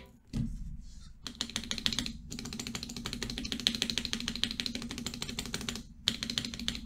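Spacebar of a Cooler Master MasterKeys Pro S mechanical keyboard pressed over and over in quick succession, with its stabilizers freshly lubed, giving a fast run of clacks that breaks off briefly near the end and then resumes.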